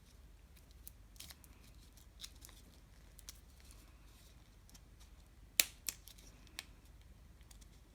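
Scissors snipping through folded paper in a few scattered short cuts, the loudest snip about five and a half seconds in, followed by two more close after.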